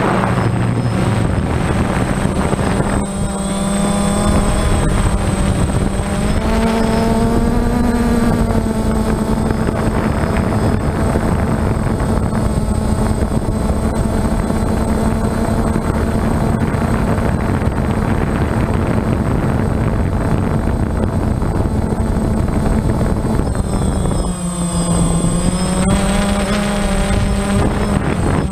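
Quadcopter's electric motors and propellers whirring steadily in flight, heard close up from the camera on its frame. The pitch of the whine shifts as the throttle changes, about three seconds in, around seven to eight seconds, and again about twenty-five seconds in.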